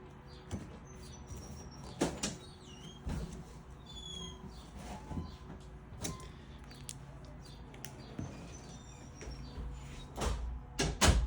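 Trading-card booster packs and cards being handled: scattered crinkling rustles and light taps of foil wrappers and card stock, with the loudest rustles near the end.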